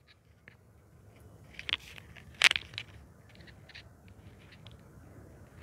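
Pause at a close microphone: a faint low hum, with two short breath-like rushes and a few soft mouth clicks.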